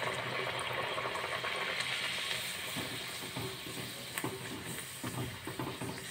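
Puri sizzling as it deep-fries in hot oil in a kadai, a steady hiss that eases off somewhat in the second half. A few light clicks of a wire skimmer against the pan come after the middle.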